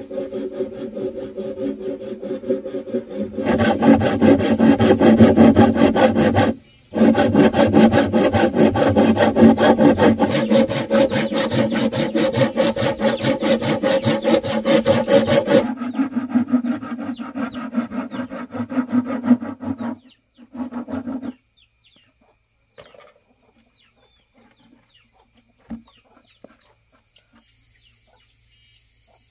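A machine hums steadily, then a few seconds in breaks into a loud, fast rasping like sawing, with one brief break. About halfway through it drops back to a hum, which stops shortly after; faint bird chirps follow.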